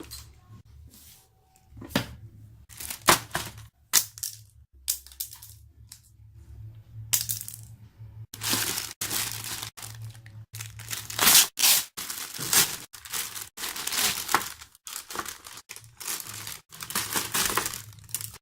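Parcel packaging being torn and crinkled open by hand: irregular ripping and crinkling, scattered at first, then nearly continuous from about halfway through.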